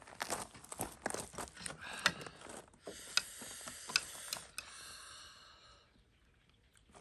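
Instant ramen being eaten: a quick run of mouth clicks and smacks, then a long slurp of noodles from about three seconds in that fades out near six seconds.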